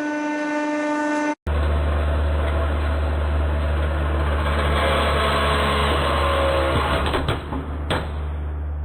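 A steady pitched whine, then, after a cut, a hydraulic press's pump running with a steady deep hum. A few sharp cracks come near the end as the press breaks into the mixer grinder's plastic.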